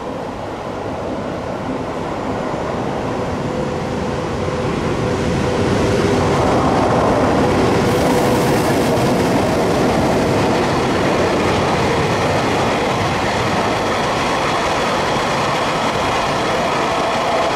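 EH200 electric freight locomotive and its train passing close by. The sound grows louder over the first several seconds as it approaches, then holds steady as the wagons roll past.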